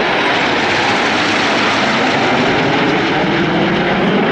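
Aircraft engine noise passing overhead, a loud steady rush.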